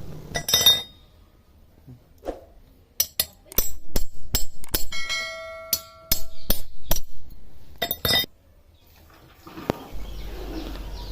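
Chisel striking and cutting through a wire clothes hanger: a run of sharp metallic clinks in irregular clusters, with one ringing metal note about five seconds in.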